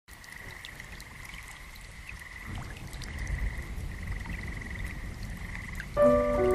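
Nature-sounds soundtrack: a steady high trilling chorus with scattered drips, joined by a low rumble about two and a half seconds in. Sustained music chords come in near the end.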